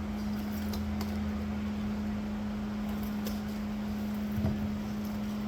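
Steady machine hum at one even pitch with a faint hiss under it, and a single soft knock about four seconds in.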